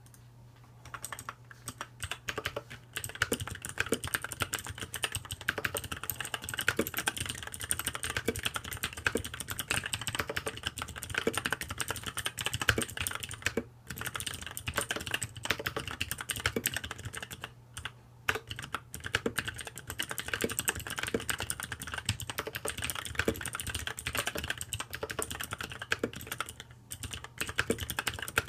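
Custom mechanical keyboard with lubricated Kailh Blue clicky switches being typed on rapidly, a dense run of sharp key clicks that starts about a second in, with a few brief pauses.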